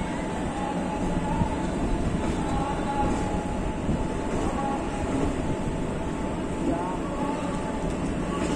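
Indian Railways passenger coaches rolling slowly past as the express pulls out, wheels running on the track with a steady rumble. A faint high squeal from the wheels comes and goes.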